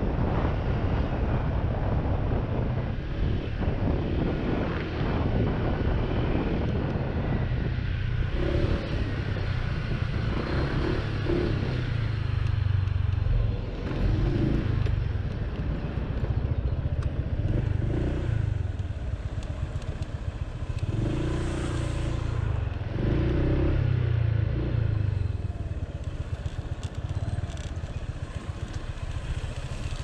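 Honda PCX scooter's single-cylinder four-stroke engine running as it is ridden, with steady road and wind noise on the microphone.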